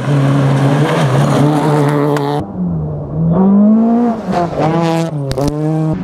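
Rally car engine running hard at steady high revs. About two and a half seconds in it changes abruptly to a rally car engine revving up and dropping back several times in quick succession, as through gear changes.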